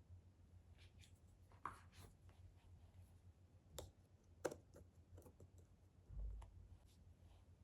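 Jigsaw puzzle pieces handled and fitted on a table, making scattered faint clicks and taps, the sharpest about four and a half seconds in, with a soft low thud a little after six seconds.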